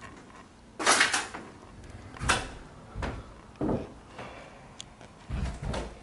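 Irregular knocks and scraping rustles from debris being disturbed on a floor littered with broken ceiling tiles and paper. There are about five of them, and the loudest comes about a second in.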